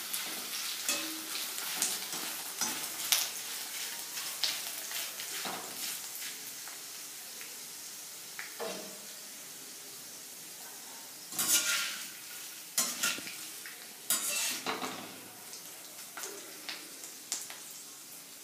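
Cornflakes deep-frying in hot oil in a kadai: a steady sizzle that gradually dies down, while a metal slotted spoon stirs through them. Sharp scrapes and clinks of the spoon against the pan come throughout, with a cluster of louder ones in the second half.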